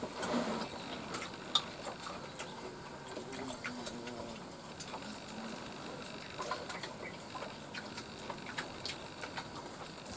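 Soft, irregular clicks and smacks of people eating with their hands from plates: chewing, and fingers and food against the plates.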